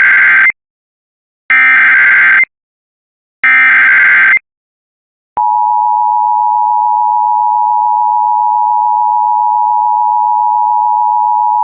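Emergency Alert System SAME header: three one-second bursts of warbling digital data tones, a second apart. About five seconds in, the long steady EAS attention tone begins. Together they announce a new weather alert.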